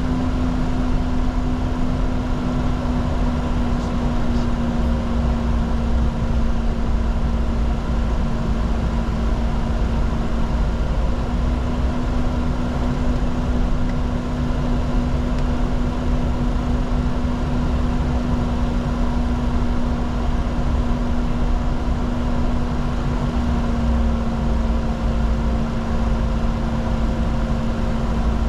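Steady cockpit drone of a Bombardier Challenger 604 business jet with its engines running: a constant hum over a low rumble and an even rush of air noise.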